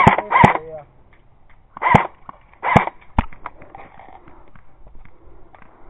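A man's voice letting out several short, loud yelps without words, each rising and falling in pitch, with a sharp click a little after three seconds in.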